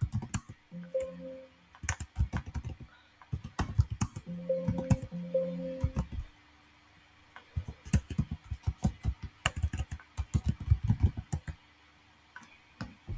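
Computer keyboard typing in irregular bursts of keystrokes as a terminal command is entered, with a couple of brief low steady tones, about a second in and again around five seconds in.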